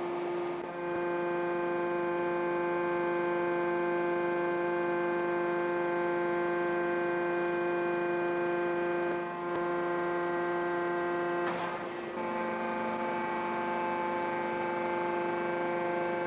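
Hydraulic deep-drawing press running as its ram pushes a metal tube through a die: a steady hum made of several fixed tones. There is a single sharp click a little under twelve seconds in, after which the hum's lower tone shifts slightly.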